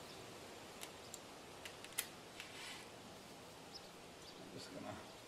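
Faint, scattered metallic clicks and taps from hand tools working on the bolts of a steel lawn cart's hitch tongue, with a sharper click about two seconds in and another near the end.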